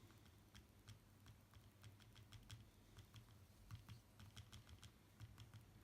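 Faint, irregular fingertip taps on the glass touchscreen of an iPad mini 2, several a second, as the newly fitted screen is tested for touch response.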